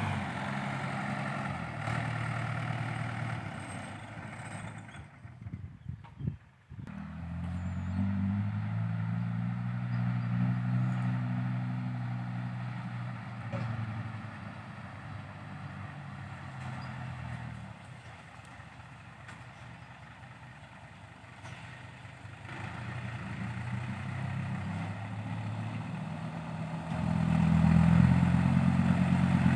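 Diesel engine of heavy earthmoving machinery working under varying load, its pitch and level rising and falling. It drops away sharply for about a second some six seconds in, and grows louder near the end.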